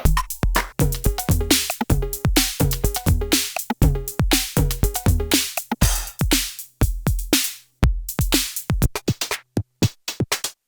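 IK Multimedia UNO Drum, a hybrid analog and PCM drum machine, playing a programmed beat of kick drum, snare, hi-hats and short pitched tom-like hits. About six seconds in the pattern turns sparser and more broken up, with quick runs of rapid hits.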